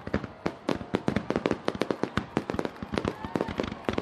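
Fireworks finale barrage: a dense, irregular string of sharp bangs and crackles, many a second, with no let-up.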